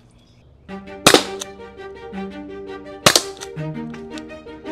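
Two sharp shots from a Byrna LE .68-calibre CO2 launcher firing aluminium balls, about two seconds apart, over background music that starts just before the first shot.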